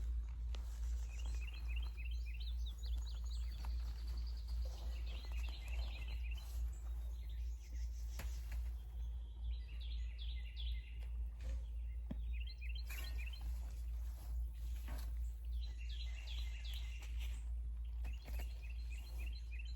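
A songbird singing short phrases of rapid, high chirps, repeated every few seconds, over a steady low hum.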